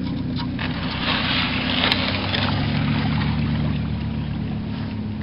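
Small boat's motor running steadily, with water rushing and splashing for a second or two near the start.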